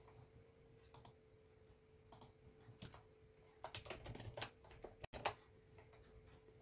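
Quiet computer keyboard keystrokes and clicks: a few single clicks, then a quick flurry about four seconds in, over a faint steady hum.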